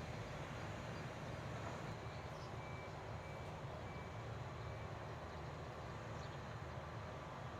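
Steady outdoor ambience of a rice field: an even low rumble and hiss, with a faint run of four or five short, high peeps about two to five seconds in.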